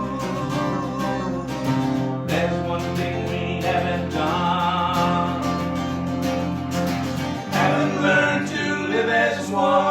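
A country-style song: strummed acoustic guitar over a bass line, with sung vocals.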